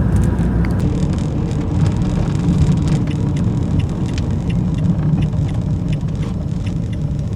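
Van engine and road rumble heard from inside the cab while driving, steady and low. From about three seconds in, a light regular ticking runs alongside it, about two ticks a second.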